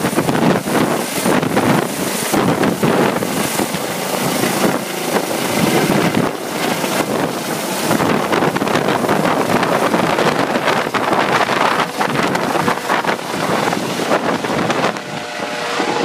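Police Eurocopter EC135 helicopter lifting off and climbing overhead: loud rotor and turbine noise, with the rotor downwash buffeting the microphone.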